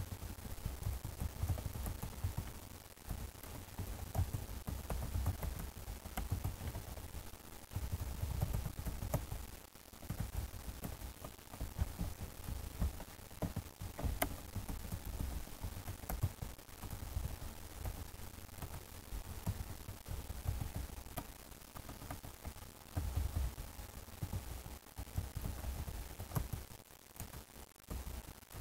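Computer keyboard being typed on, picked up by a desk microphone: irregular key clicks over low thuds and rumble, in spurts with short pauses.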